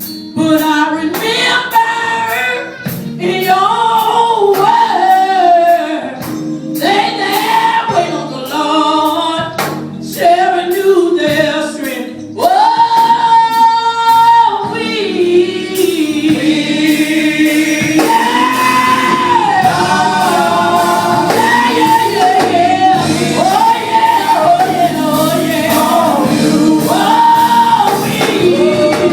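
Music with singing, gospel-style, with long held sung notes.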